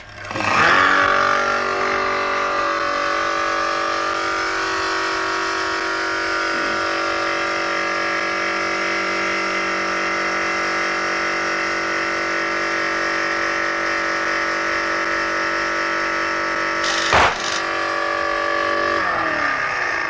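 The motor of a homemade machine starts up and runs steadily. Near the end a balloon on it bursts with a single sharp bang. The pressure in the balloon drops, its pressure switch cuts the motor, and the motor winds down.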